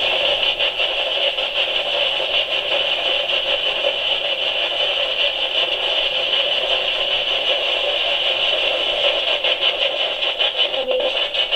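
Spirit box sweeping through radio stations: a steady rush of static with a fast, choppy flutter.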